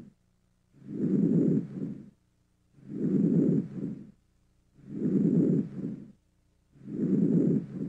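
Normal vesicular breath sounds heard through a stethoscope over the lungs, four breaths about two seconds apart. Each breath is a soft, low-pitched rush on inspiration followed by a shorter, fainter sound over the first part of expiration.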